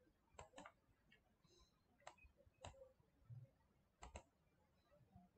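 Six faint computer mouse clicks, two of them in quick pairs.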